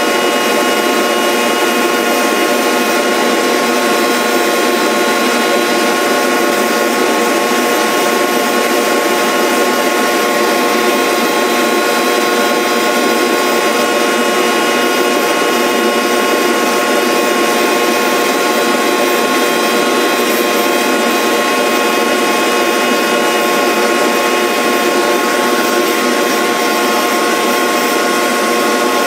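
Electric motor of a woodworking machine running steadily: a constant whine made of several steady tones over a noisy hiss, with no change in speed or load.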